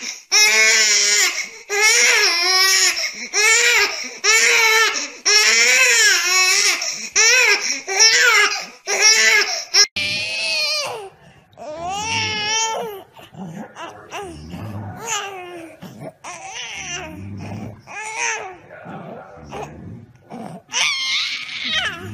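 A young baby crying in loud repeated wails, about one a second. About ten seconds in, after a cut, a baby cries and fusses more quietly and unevenly, with some low thumps.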